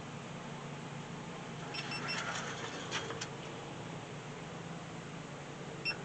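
Faint steady low hum with a few scattered clicks. About two seconds in come three quick, short, high electronic beeps, and one more near the end.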